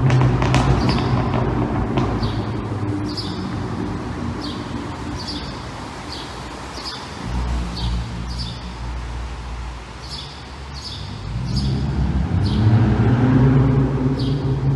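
Straight-piped Acura TLX 3.5 L V6 exhaust, loud at first, fading over several seconds to a low rumble, then growing louder again near the end. A bird chirps throughout, short falling chirps about once a second.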